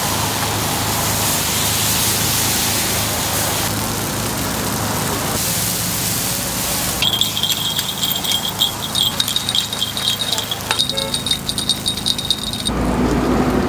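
Takoyaki batter sizzling on a hot multi-well griddle, with the sound changing abruptly several times. Between about 7 and 11 seconds in, rapid metallic clicking and ringing comes over it.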